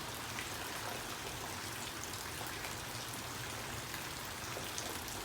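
Steady rain falling: an even hiss of rain with scattered drops ticking on surfaces.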